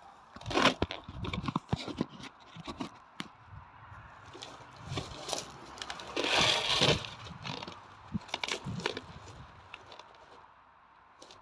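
Irregular scrapes, knocks and rustling handling noise, with a louder rustle about six to seven seconds in.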